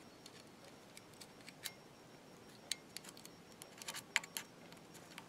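Faint, irregular small clicks and scrapes of a screwdriver tip working a carbon brush and its spring into the brush box of a Lucas ACR alternator, with the clicks coming closer together about four seconds in.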